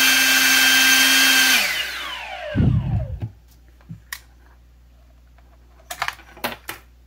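EGO LB5300 blower's brushless fan motor running at full speed on turbo with a steady rushing whine, powered through its repaired controller; about a second and a half in it is switched off and spins down with a falling whine. A thump follows, then a few light clicks.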